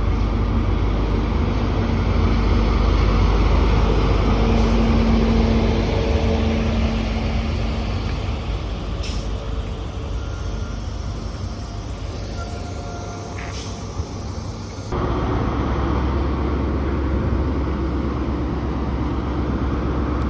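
Diesel power car engines of a High Speed Train (HST) running as the train moves through the station: a loud, steady engine hum that swells and then fades. About fifteen seconds in, it gives way abruptly to a steadier low rumble.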